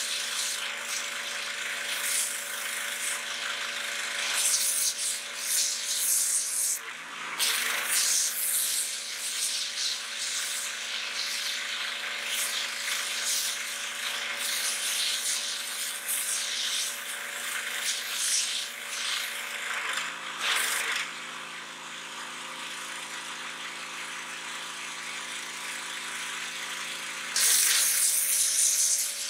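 Pressure washer running, with a steady motor hum under the hiss of its water jet blasting a pumpkin and the grass around it. The spray noise dips briefly twice and turns louder near the end.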